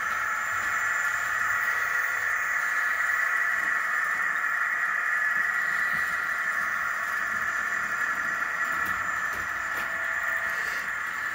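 Model train running on its track: a steady whir from the locomotive's electric motor and the wheels rolling on the rails.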